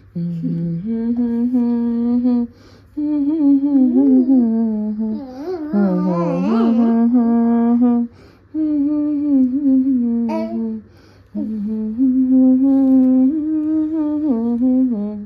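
A woman humming a lullaby tune without words, in long held notes with short breaks between phrases.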